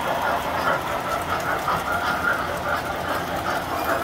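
Tinplate model freight train rolling past, a steady rolling rattle of its metal cars and wheels on the track.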